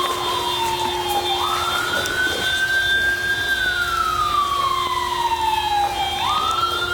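Emergency vehicle siren wailing in slow cycles. Each cycle rises quickly in pitch, then falls in a long slow sweep, with the pitch jumping up twice, about a second and a half in and again near the end.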